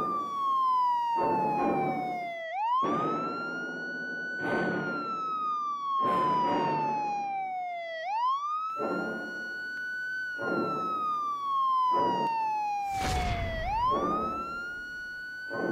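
Emergency-vehicle siren wailing in slow cycles: each cycle is a quick rise followed by a long falling tone, repeating about every five and a half seconds. A regular pulsing sound runs beneath it, and there is a louder burst near the end.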